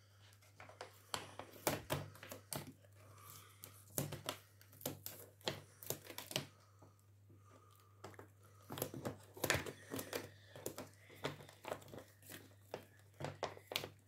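A bag of lavender-scented cat litter being opened by hand: its packaging crinkles and tears in irregular crackles.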